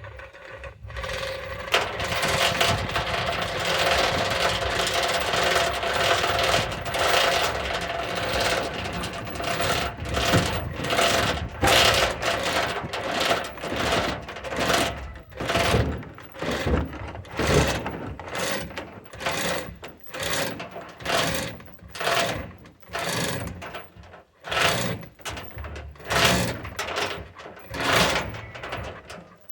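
Hoist lifting a truck cab on straps. The mechanism runs steadily with a whine at first, then from about ten seconds in it works in short repeated bursts, one to two a second.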